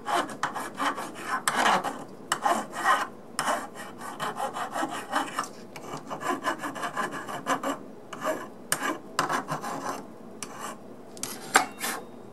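Flat file rasping across the edges of a die-cast metal locomotive frame in runs of quick back-and-forth strokes with short pauses, taking off casting flash.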